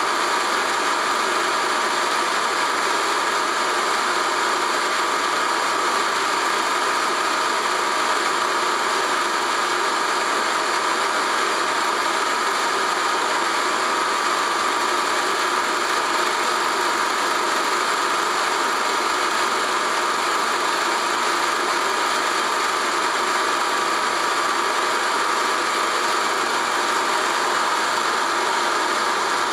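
Film projector running steadily: an even mechanical whirr and rattle of the motor and film transport that does not change.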